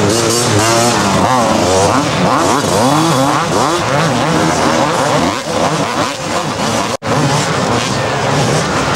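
Several supercross motorcycles' two-stroke engines revving up and down together as the bikes race around the track. The sound cuts out for an instant about seven seconds in.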